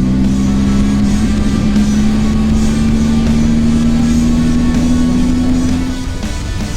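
Motorcycle engine running and pulling away, its pitch rising slowly and evenly, fading out about six seconds in, under rock music with guitar.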